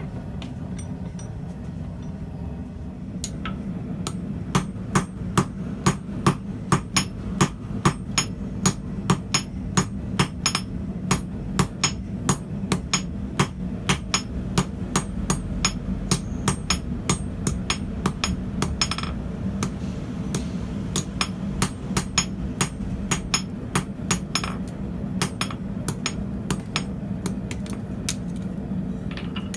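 Hand hammer striking a red-hot twisted steel bar on an anvil, about two blows a second, with a short pause about two-thirds of the way through. A steady low hum runs underneath.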